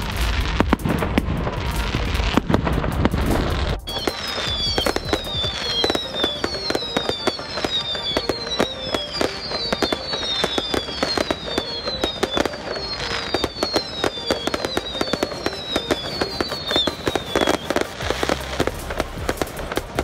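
Fireworks display: a dense stream of bangs and crackles from bursting shells. From about four seconds in until near the end, a high falling whistle repeats roughly once a second.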